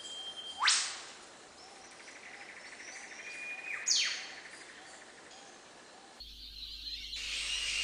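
Birds calling: two loud, sharp sweeping calls about three seconds apart, each after a thin held whistle, over faint background chirping. Music begins to fade in near the end.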